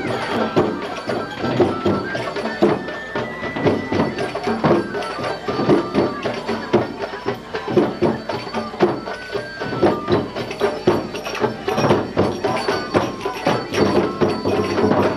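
Music with fast, dense percussion strokes and a melody line of held notes stepping up and down above it.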